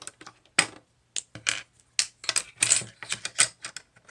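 Plastic Lego pieces clicking and clattering as they are handled: a quick, irregular run of sharp clicks with short gaps between them.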